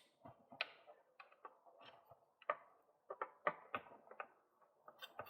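Irregular small clicks and taps of a metal bolt and bike parts being handled as a longer bolt is tried for fit in the frame.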